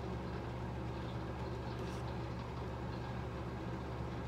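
Steady low hum of room background noise, even throughout.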